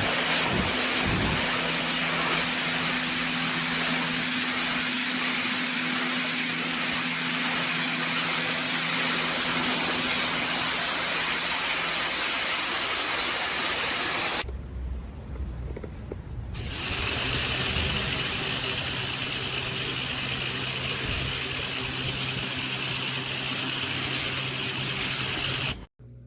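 Westinghouse ePX3500 electric pressure washer running, its motor and pump humming under the steady hiss of the water jet spraying a deck. The spray drops away for about two seconds a little past halfway, comes back, and cuts off suddenly near the end.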